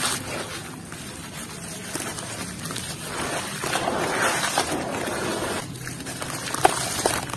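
Hands squeezing and mashing wet crumbly chunks in muddy water: squelching, sloshing and gritty crunching, louder in the middle, with a couple of sharper crunches near the end.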